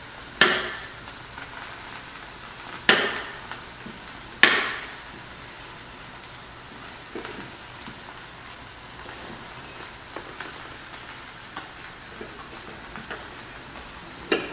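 Chef's knife coming down through radishes and carrots onto a bamboo cutting board: three sharp knocks in the first five seconds, then only light taps. Under it a steady sizzle from chicken breasts cooking in a closed contact grill.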